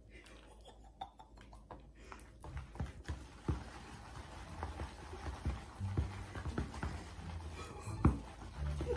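A utensil stirring noodles in a plastic tub: scattered clicks and scrapes against the plastic, mostly from about two and a half seconds in, with a louder knock near the end.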